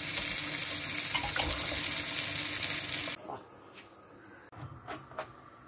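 A steady, loud hiss that cuts off abruptly about three seconds in, followed by a few light knocks.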